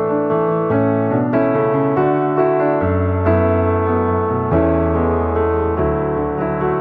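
Background music: a piano playing a slow melody over sustained bass notes.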